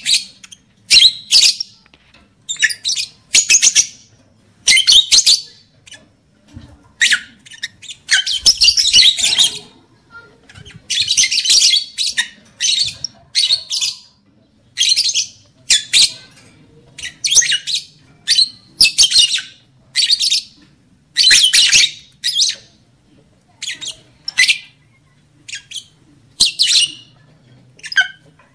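Lovebirds calling in shrill, rapid chattering squawks. The calls come in short bursts about once a second, with a longer run of chatter about a third of the way in.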